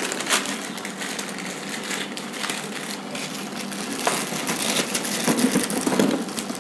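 Thin plastic bag crinkling and rustling as its knot is worked open by hand, with denser, louder crackles in the last couple of seconds.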